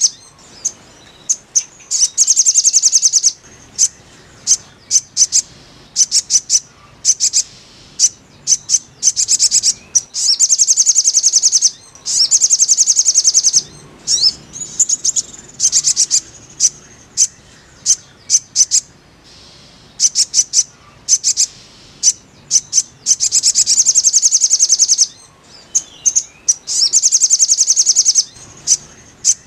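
Sogon birdsong: loud, fast, high trills lasting a second or two, repeated every few seconds, with short sharp chirps between them.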